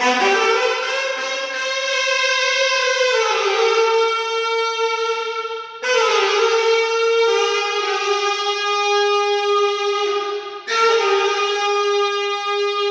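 Alto saxophone playing slow, long held notes in three sustained phrases, each beginning with a fresh attack and sliding to a new note partway through.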